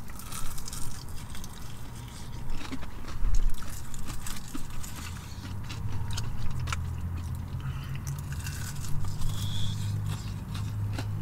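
Crispy fried chicken wings being bitten and chewed: scattered crunches and small clicks, over a steady low hum that grows louder about halfway through.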